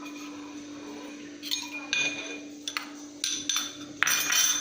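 Metal kitchen utensils clinking and scraping, a spoon knocking against the pot as crushed ginger is tipped into the water: a handful of sharp clinks with brief ringing, and a longer scrape near the end.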